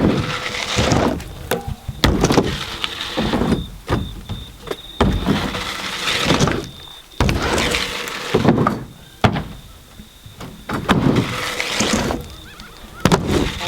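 BMX bike riding a line over wooden ramps: repeated rushes of tyres rolling up and down the wood every couple of seconds, broken by sharp knocks and thuds from the bike landing and hitting the ramps.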